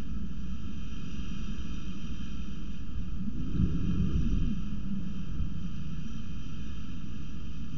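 Steady low rumbling noise of a thunderstorm on the nest-box microphone, with a brief, louder low rumble of thunder about three and a half seconds in, lasting around a second.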